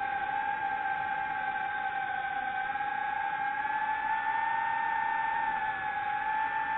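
Drone propellers whining steadily at one slightly wavering pitch, over a rushing noise of the motors and air.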